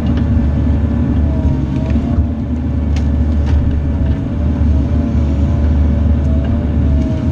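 Bobcat E42 mini excavator's diesel engine running steadily under load: a heavy low rumble with a faint whine that wavers slightly in pitch.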